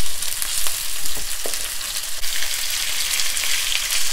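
Raw diced chicken breast sizzling and crackling in hot corn oil in a small frying pan, with a few light taps and scrapes of a spatula moving the pieces.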